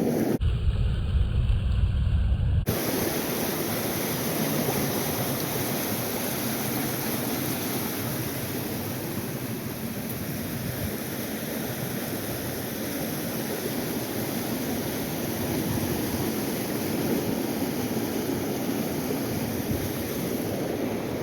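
Steady rushing of river current, an even wash of water noise with some wind on the microphone. For about two seconds near the start, a loud, deep rumble of wind buffeting the microphone covers it, then stops abruptly.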